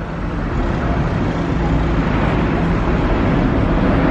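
Steady low engine and road rumble heard from inside the upper deck of a double-decker sightseeing bus as it drives along.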